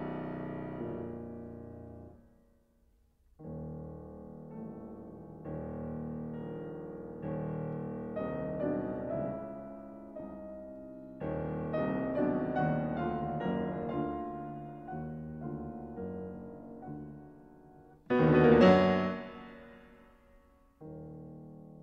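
Slow solo piano music: single notes and chords that ring and fade, with a brief pause near the start and a loud struck chord near the end.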